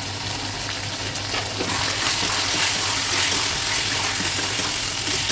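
Chicken pieces frying in oil with ground spices in a kadai, sizzling steadily. The hiss grows louder about two seconds in, over a low steady hum.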